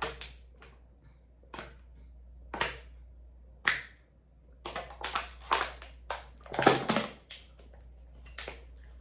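Thin plastic water bottle crackling and crinkling as it is drunk from and squeezed: a few separate crackles, then a dense run of them about five to seven seconds in.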